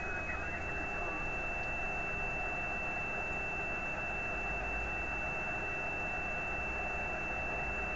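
Amateur radio receiver tuned to a satellite downlink: steady hiss with a single high, steady carrier whistle, which steps slightly up in pitch about half a second in.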